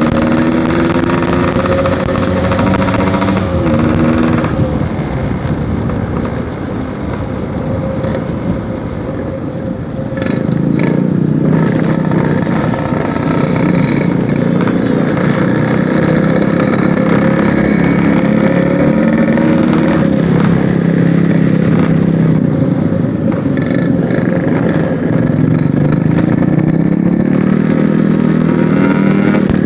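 Yamaha RX-King's 135cc single-cylinder two-stroke engine with a packing-power aftermarket exhaust, being ridden. It eases off and runs quieter for a few seconds near the start, then revs up and down again and again.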